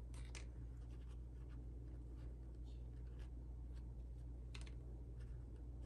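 Faint handling noises: scattered light clicks and rustles from a clear plastic deli cup being opened and damp paper towel being pulled out of it, with one sharper click about four and a half seconds in. A steady low hum runs underneath.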